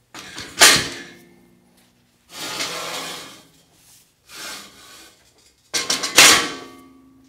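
Welded steel-tube stand frame being turned over by hand on a lift: two sharp metal clanks, about half a second in and near the end, each ringing on briefly, with scraping and sliding of steel in between.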